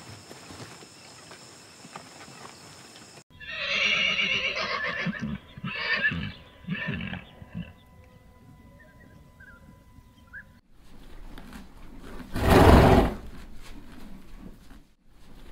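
Horses neighing: about three loud whinnies in quick succession starting about three seconds in. Later a loud, short rush of noise comes about twelve and a half seconds in.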